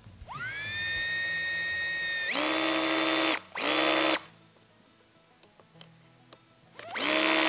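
Cordless drill/driver tightening the worm-screw hose clamps on a water-line hose. The motor spins up with a rising whine and runs steadily, then turns louder and harsher for about a second. A short second burst follows, and another short run comes near the end.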